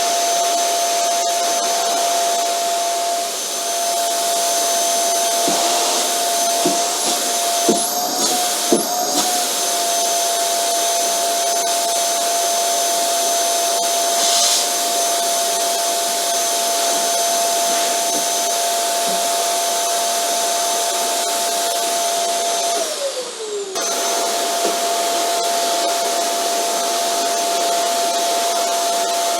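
Vacuum cleaner running steadily, a rushing noise with a steady motor whine. A few light knocks come about seven to nine seconds in, and near the end the whine falls in pitch and the sound dips for about a second before it picks up again at full speed.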